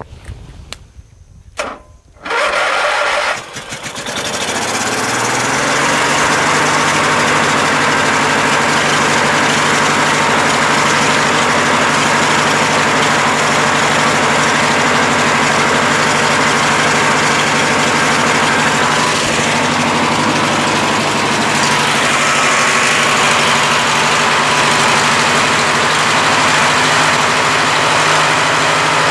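Briggs & Stratton 19.5 hp opposed-twin engine of a Craftsman LT1000 lawn tractor being started with a spray in the carburetor: a few clicks and a brief crank, then it catches about three seconds in and runs steadily.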